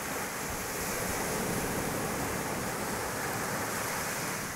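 Small ocean waves breaking and washing up the sand at the water's edge: a steady rushing hiss that swells through the middle and eases near the end.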